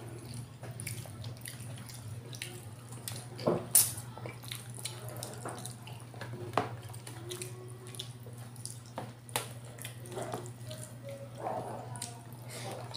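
Close-up eating sounds: wet chewing and lip smacks with scattered short clicks, over a steady low hum.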